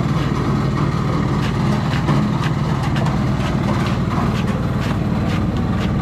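Boat engine running steadily with a low, even hum, a scatter of light clicks over it.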